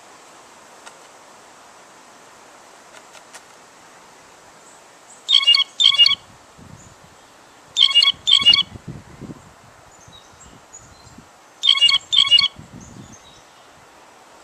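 Blue jay calling: three pairs of short, loud calls, each pair about two to three seconds after the last.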